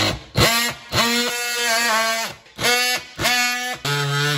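Cordless oscillating multi-tool running as it cuts a notch into the wall. It cuts in short bursts, stopping and restarting about five times.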